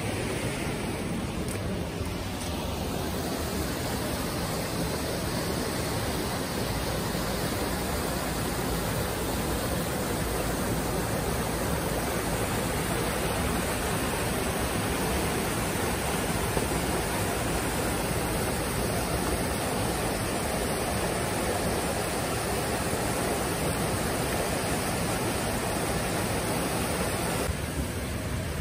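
Mountain river rushing steadily over rocks and rapids.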